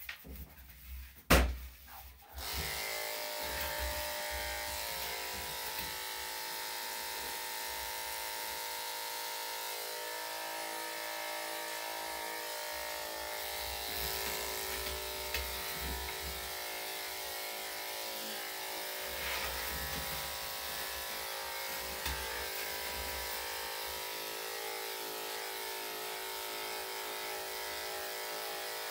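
Corded electric dog grooming clippers fitted with a #5 blade, cutting a puppy's coat. A sharp click comes a little after a second in, and the clippers then run steadily from about two seconds on.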